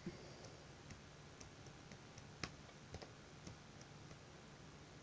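Near silence: room tone with a low hum and faint ticks about twice a second, one a little louder about two and a half seconds in.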